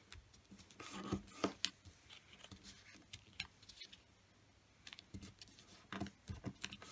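A sheet of 15 cm origami paper being folded and creased by hand: soft, scattered crinkles and rustles as the corners are folded up and pressed flat, busiest about a second in and again near the end.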